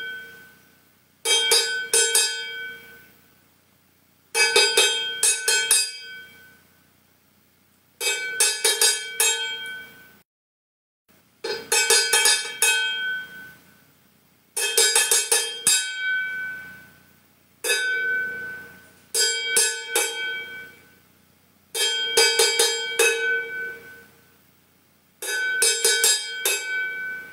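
Enamel lidded pot beaten with two wooden beaters as a make-believe drum: nine short runs of a few quick strikes, about every three seconds, each ringing out with a metallic, bell-like tone.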